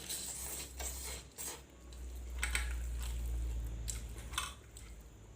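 Someone eating fried instant noodles: a few short wet chewing and slurping noises and utensil clinks against the plate, over a low steady hum.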